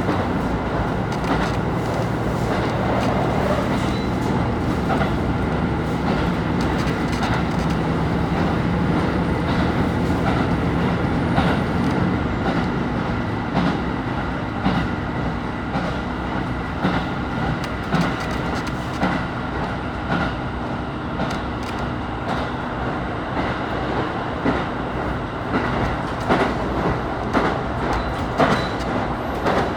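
KiHa 25 diesel railcar running, heard from inside the car: a steady engine and running drone with wheels clicking over rail joints, the clicks coming more often in the last third.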